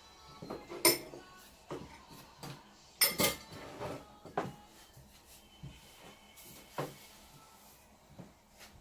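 Scattered clinks and knocks of kitchen dishes and utensils on a work surface, a few sharp ones with quiet between, the loudest cluster about three seconds in.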